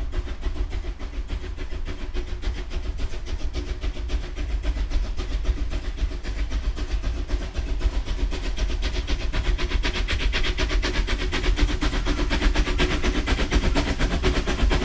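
Replica Leviathan steam locomotive running: a fast, steady rhythm of exhaust chuffs over a low rumble, growing a little louder toward the end.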